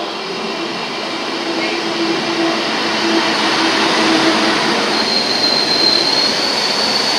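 Red DB regional train rolling into the platform and passing close by, its running noise growing louder. A low hum fades out about three seconds in. A high, thin squeal, rising slightly, comes in about five seconds in as the train brakes.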